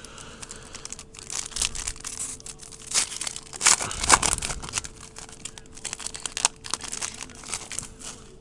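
Baseball trading cards being handled and flipped through: irregular rustling, crinkling and flicks of card edges, with no steady rhythm.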